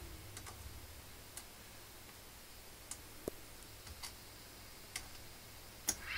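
A few scattered light clicks and taps with the music stopped: a toddler's hand pressing the start/stop button and handling a Technics turntable deck. A slightly louder click comes near the end.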